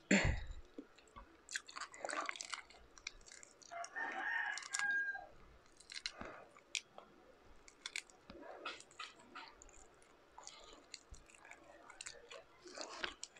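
Close-up eating sounds: the shell of a whole shrimp crackling as it is peeled by hand, with chewing and small clicks throughout. A sharp knock comes right at the start, and a drawn-out call sounds in the background about four seconds in.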